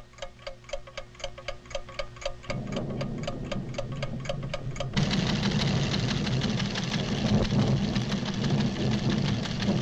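Cartoon sound effect of a measuring instrument ticking fast and evenly, about four or five ticks a second. A low rumble comes in about halfway through it, and at about five seconds a loud rumbling noise swamps the ticking: the sound of a volcanic tremor.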